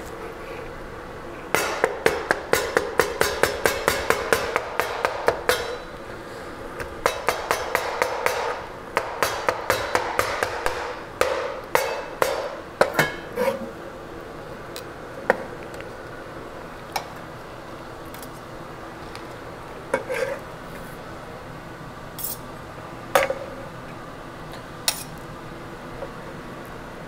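Meat cleaver chopping tender braised pork belly and duck on the bone against a cutting board. It comes in quick runs of chops, about four a second, for most of the first half, then as single, spaced-out knocks.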